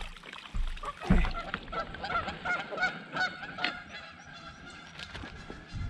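Geese honking over and over in short calls, with a couple of low thumps about half a second and a second in.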